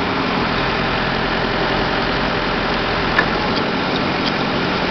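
An engine idling steadily under a wash of steady noise, with a single sharp click about three seconds in.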